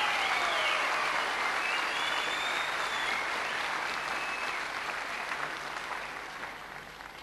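Audience applauding after a kapa haka item, the clapping fading away gradually.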